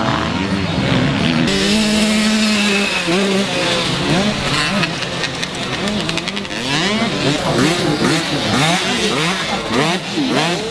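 Small 50cc two-stroke youth motocross bikes running on the track, their engines held steady at first and then revving up and down over and over as the riders work the throttle, several engines overlapping.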